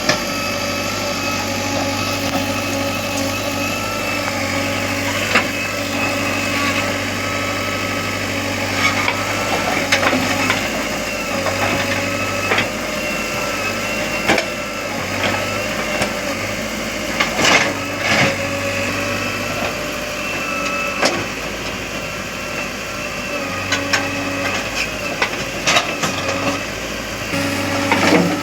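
Heavy diesel engine running steadily, with short knocks and clunks now and then.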